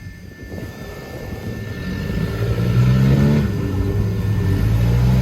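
Off-road vehicle engine revving up: it grows louder and climbs in pitch from about two seconds in, then holds steady at higher revs.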